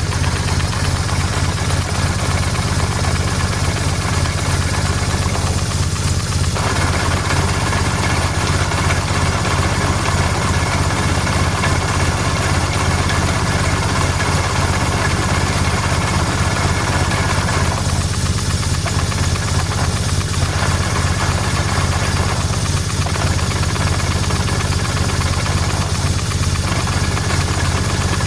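BMW R1150GS boxer-twin engine idling with a steady knock and tick, the sign of a failed gearbox output shaft bearing. The clatter is louder from about six seconds in until about eighteen seconds.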